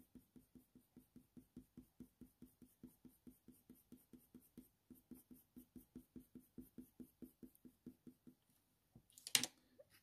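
Faint, quick back-and-forth strokes of a Faber-Castell Polychromos colour pencil on heavy hot-press watercolour paper, about five a second, blending and smoothing a grey layer. Near the end the strokes stop and there is a short clatter as the pencil is swapped.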